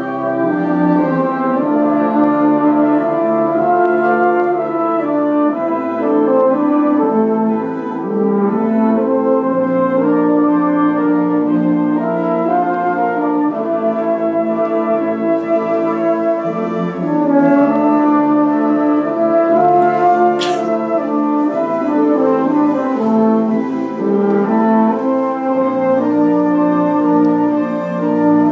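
Symphonic wind band playing full, sustained chords that shift every second or two, brass prominent over clarinets and saxophones, with one sharp hit about twenty seconds in.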